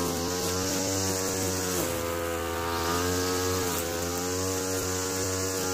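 Small two-stroke engine from a TU26 sprayer, driving a homemade remote-controlled lawn mower, running steadily at high speed. Its pitch dips and rises slightly a couple of times as the mower moves over the grass.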